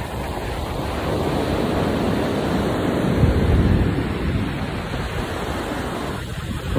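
Ocean surf breaking and washing up a sandy beach, a steady rushing noise, with low gusts of wind buffeting the microphone about three seconds in.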